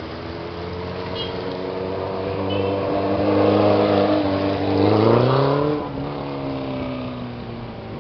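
A line of motorcycles riding past one after another, their engines running. About five seconds in, the loudest one climbs in pitch as it accelerates past, then drops lower and fades away.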